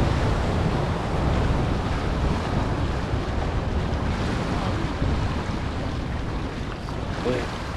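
Small ocean waves washing and splashing over jetty rocks, with wind buffeting the microphone in a steady low rumble.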